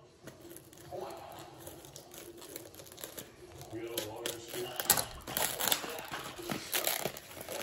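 Plastic packaging of an instant ramen being torn open and crinkled: a run of sharp rustles and crackles that gets busier and louder from about four seconds in.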